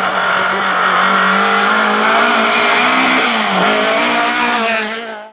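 Classic Fiat 124 Spider rally car's engine running hard at high revs as the car drives past on loose gravel. The engine note dips briefly about three seconds in, then rises again.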